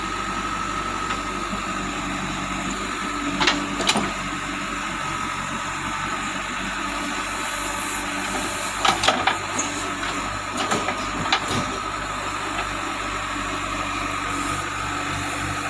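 JCB 3DX backhoe loader's diesel engine running steadily under a constant whine, with a few sharp knocks: two about three and a half and four seconds in, and a cluster between nine and eleven and a half seconds.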